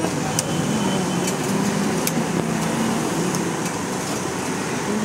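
Steady street traffic noise with faint distant voices and a few light sharp clicks.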